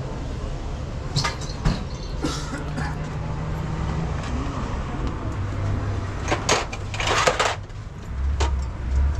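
Steel sockets and spanners clinking in a metal bowl: a couple of sharp clicks about a second in, then a louder burst of clatter about seven seconds in, over a steady low hum.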